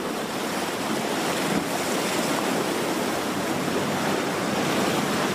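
Sea surf washing against the concrete blocks of a harbour breakwater: a steady, gently swelling rush of water.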